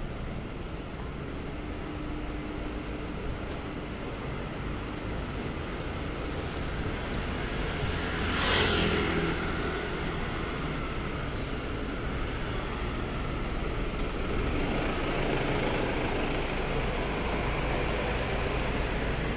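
City street traffic noise, with a motor vehicle passing close about halfway through; the traffic noise grows a little louder near the end.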